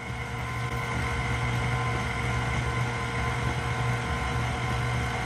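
Electric mixer motor running steadily with a constant hum, getting a little louder in the first second.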